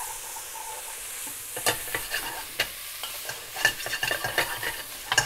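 Sliced onions and leeks sizzling in olive oil in a pot on a gas hob, a steady hiss. From about a second and a half in, a wooden spoon stirring them gives a run of irregular clicks and knocks against the pot.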